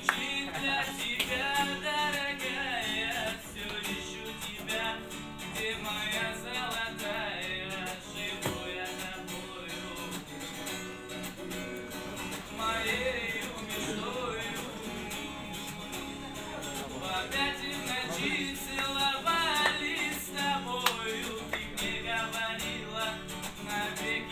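Music: a song's instrumental passage led by guitar, with a wavering melodic line over it.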